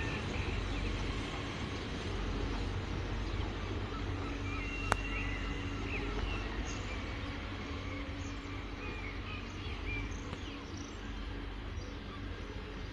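Railway station ambience after a train has passed: a steady low rumble, scattered short chirps of small birds, and a single sharp click about five seconds in.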